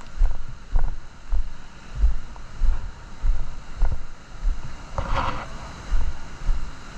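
Wind on the microphone with a regular run of low thumps, about one every half second or so, and a brief louder rushing burst about five seconds in.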